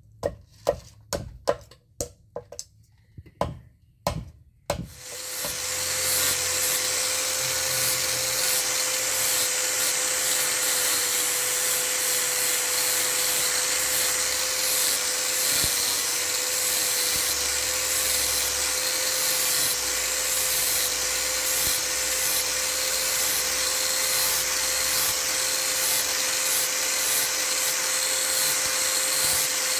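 Quick sharp knocks, about two a second, as a metal ring is tapped onto a wooden knife handle. Then, about five seconds in, an electric angle grinder with an abrasive disc spins up and runs steadily with a constant whine while grinding the wooden handle into shape.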